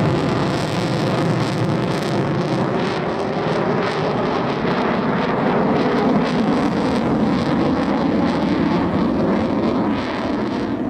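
Jet fighter engine noise, a steady, loud, dense rushing sound with a rough low rumble underneath.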